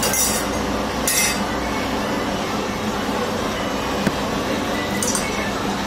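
Hand-held gas soldering torch burning with a steady hiss, with short sharper hisses near the start, about a second in and about five seconds in, and a single light click about four seconds in.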